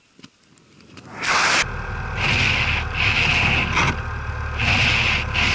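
Snow shovel scraping and pushing snow right beside the microphone: a run of loud, rough scrapes starting about a second in.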